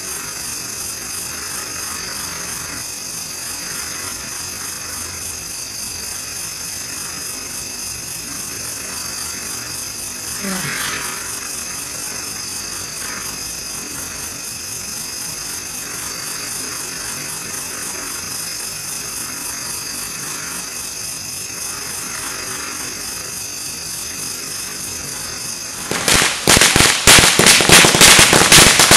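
Consumer firework fountain spraying sparks with a steady hissing buzz, briefly louder about ten seconds in. About 26 seconds in a string of firecrackers goes off in a rapid run of loud cracks, the loudest sound here.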